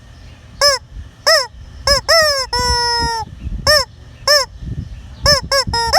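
A chicken giving about ten loud honking squawks. Most are short and rise and fall in pitch, and a couple are drawn out on one steady pitch.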